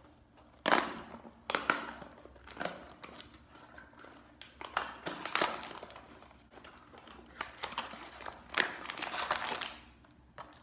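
Paper carton of Koala's March biscuits being torn open by hand and its foil inner bag pulled out, crinkling. Irregular rustles and crinkles, loudest about a second in and again near the end.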